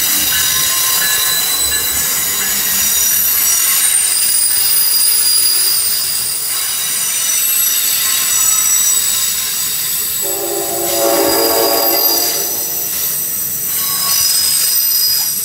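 Amtrak Northeast Regional passenger train rolling past close by, its wheels squealing in many steady high-pitched tones. About ten seconds in, a train horn sounds a multi-tone chord for about two seconds.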